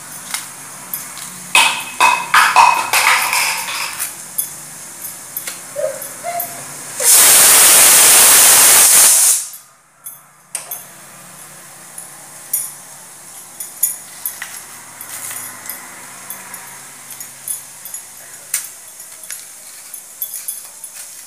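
Hands peeling the skin off a green vegetable: small scattered snaps, scrapes and knocks, busiest in the first few seconds. About seven seconds in, a loud hiss lasts some two and a half seconds, then cuts off suddenly.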